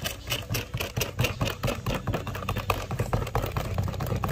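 Banana fritter batter being stirred in a bowl with a utensil: quick, uneven clicking and scraping against the bowl, several strokes a second.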